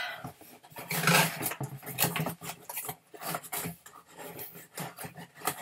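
Cardboard and packing paper rustling and scraping in irregular bursts as an item is worked out of a snug white box.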